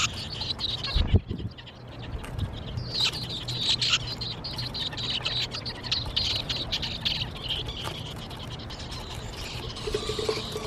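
Red-breasted nuthatch nestlings in a birdhouse giving rapid, high begging chirps as an adult feeds them, with a low thump about a second in.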